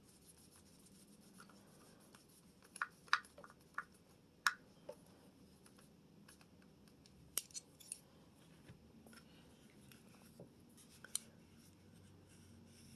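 Faint, scattered clicks and light scrapes of hard polymer grip panels being handled and fitted against a 1911 pistol's frame. There is a cluster of clicks a few seconds in, another about halfway through, and one more near the end.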